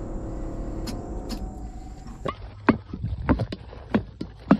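A vehicle engine running steadily, cutting off about two seconds in, followed by a string of sharp knocks and clicks at uneven spacing.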